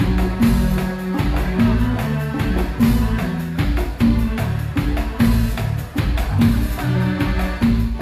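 Live band playing an instrumental groove at a sound check: drum kit and percussion keep a steady, repeating beat under keyboards and a moving bass line.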